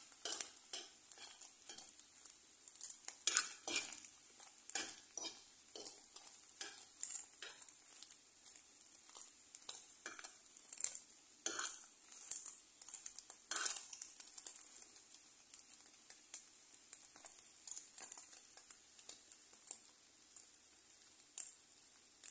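Metal fork scraping and tapping against a nonstick frying pan as scrambled eggs are stirred and broken up, in irregular clicks that thin out after about fourteen seconds. A faint steady sizzle of the eggs frying runs underneath.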